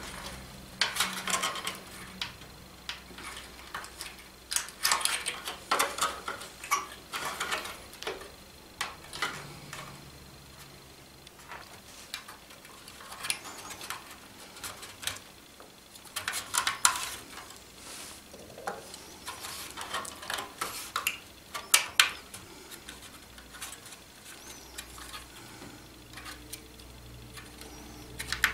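Bouts of a sanding block rubbing across the ends of a bundle of thin wooden planking strips, mixed with light clicks and taps as the strips are handled and fanned together. The rubbing and clicking come in short clusters with pauses between, and a few sharper clicks stand out.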